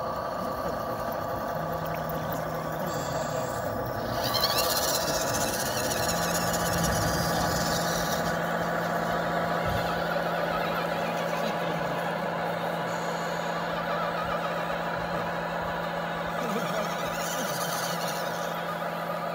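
Electric motor of a radio-controlled amphibious vehicle running at a steady whine as it drives through water. Brief rushes of hiss come about four seconds in and again near the end.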